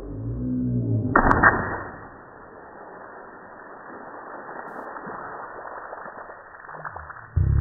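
A water balloon bursts on a concrete patio about a second in, a sudden pop and splash of water that then fades away.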